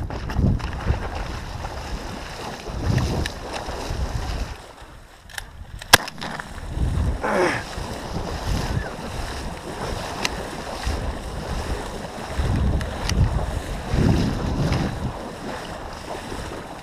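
Wind buffeting the microphone and water sloshing around a small hunting boat on open bay water, with one sharp shotgun shot about six seconds in.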